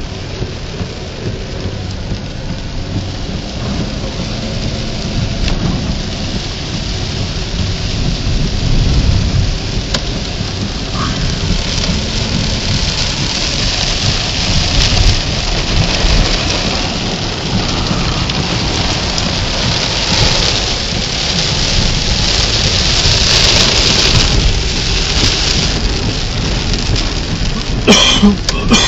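Heavy thunderstorm rain pelting down, swelling louder through the first half and staying heavy, over a low rumble. A brief sharp clatter near the end.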